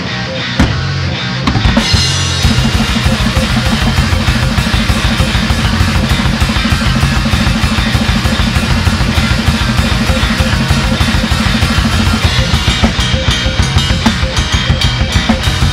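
Rock music played on drum kit and guitar. The full band comes in about two seconds in, over a fast, steady drum beat.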